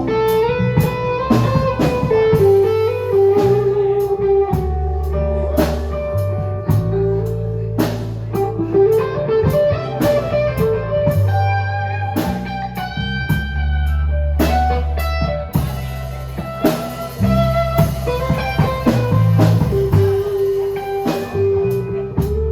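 Live blues band playing an instrumental passage: an electric guitar solo with bent notes over bass guitar and a drum kit.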